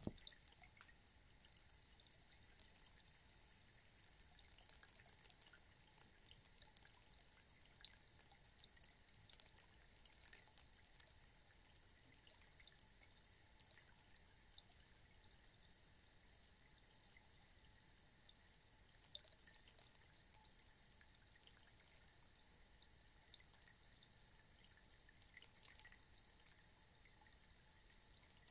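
Rainstick standing on end, its filling trickling down inside as a faint, steady patter of tiny clicks like light rain. A light knock right at the start as it is set down.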